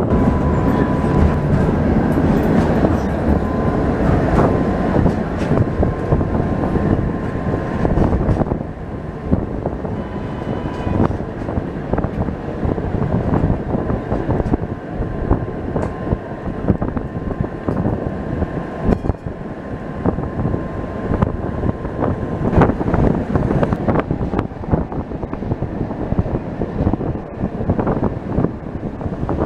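Tram running along its rails, heard from inside the car: a steady rumble with clacks of the wheels over rail joints. A thin steady whine rides on top for the first eight seconds or so, then the sound drops a little in level.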